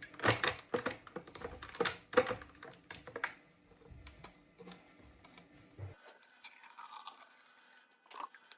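Irregular plastic clicks and knocks from handling the HouseUp wet vacuum's clean-water reservoir as it is readied for filling. About six seconds in these stop and a fainter, even hiss is left.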